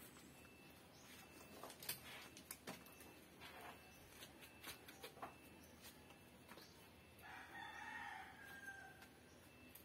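A rooster crows once, about seven seconds in, one call of nearly two seconds that falls in pitch at its end. Before it come a few scattered sharp knocks and creaks from the wooden scaffold being climbed.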